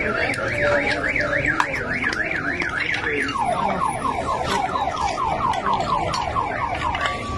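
Car alarm sounding. It warbles quickly for about three seconds, then switches to a rapid run of falling chirps, about four a second, and near the end changes to a steady tone.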